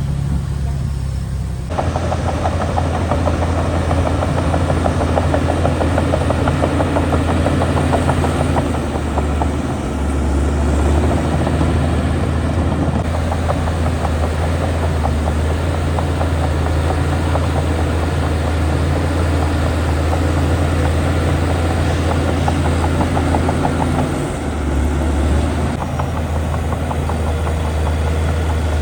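Heavy diesel engine of earthmoving machinery running steadily with a deep drone, the sound shifting abruptly about two seconds in.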